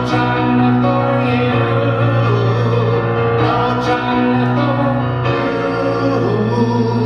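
A man singing a rock song to his own accompaniment of held chords on a Yamaha CP4 Stage digital piano, voice and piano alone.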